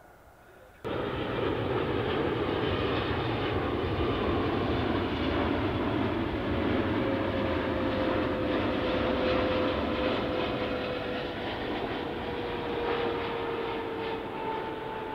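Jet airliner's engines on its landing approach, cutting in suddenly about a second in and running as a steady loud rush, with a whine that falls slowly in pitch as the aircraft passes.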